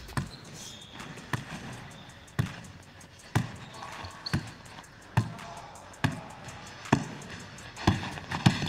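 Basketball dribbled on a hardwood gym floor, bouncing steadily about once a second and a little faster near the end.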